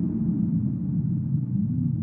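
Low ambient soundtrack drone, deep in pitch, with slowly gliding, wavering tones.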